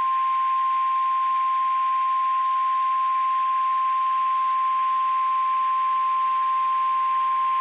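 National Weather Service 1050 Hz warning alarm tone: a single steady high beep held without a break over a light hiss, the signal that a weather warning is about to be read.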